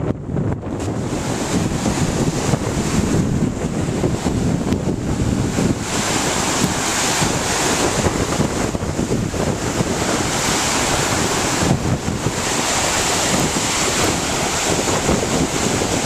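Ocean surf breaking and washing in the shallows, with wind buffeting the microphone.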